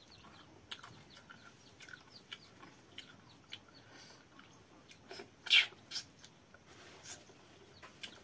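Mouth sounds of a man eating wet water rice (pakhala) and curry with his fingers: scattered chewing smacks and lip clicks, with one louder, sharper sound about five and a half seconds in.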